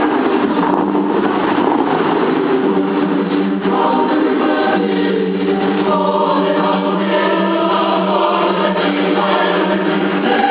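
Choral music: a choir singing sustained chords that change every second or two, loud and steady.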